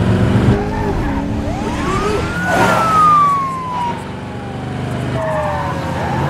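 Police car siren wailing: its pitch rises steeply about a second and a half in, falls in a long slow glide, and starts to rise again near the end. Underneath it, car engines hum steadily as the vehicles drive at speed.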